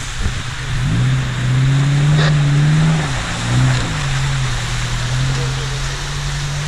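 Ford Maverick 4x4's engine working under load as it climbs a rock slope through running water: the engine note rises about a second in, holds, dips near three seconds, picks up briefly, then settles to a steady drone. Rushing water runs underneath throughout.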